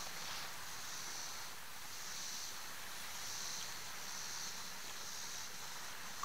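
Outdoor insect chorus: a steady high-pitched hiss that swells and fades about once a second.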